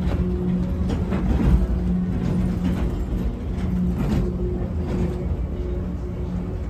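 Automated airport people-mover train running, heard from inside the car: a steady low rumble with an electric motor hum that fades in and out, and a few light knocks and rattles from the car.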